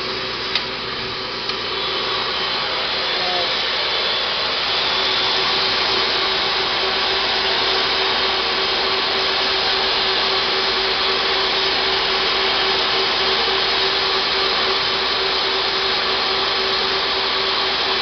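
Electric vacuum motors of a truck-mount carpet cleaning machine switched on, with a couple of sharp clicks in the first second or two. The motors build up over the first few seconds and then run steadily and loudly: a dense rushing noise with a constant hum underneath.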